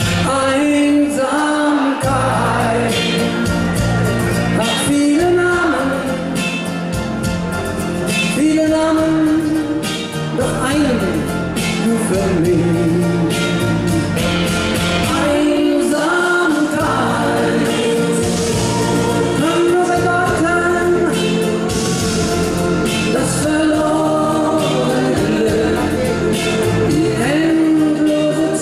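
Schlager pop song: a man singing over a band backing with a steady beat.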